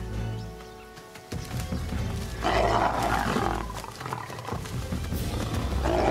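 Lions snarling at each other in a fight, in two loud bursts: one about two and a half seconds in, lasting about a second, and another near the end, over background music.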